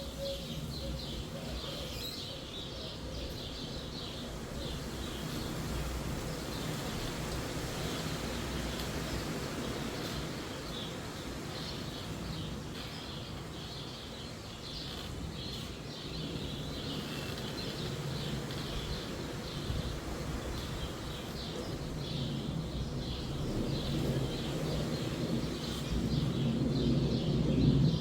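Small birds chirping constantly in many short overlapping calls, over the low rumble of wind in the trees that swells near the end.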